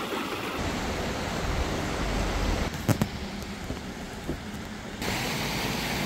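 Steady rushing of a forest creek. A low rumble runs under it in the first half, and two sharp clicks come about halfway.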